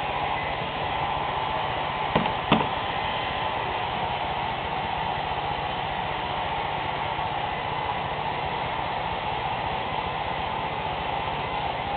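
Handheld hair dryer running steadily: a constant rush of air with a steady whine. Two brief knocks about two seconds in.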